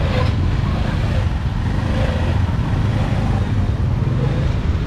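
Motorbike engines running close by: a steady low rumble over the general noise of a crowded street market.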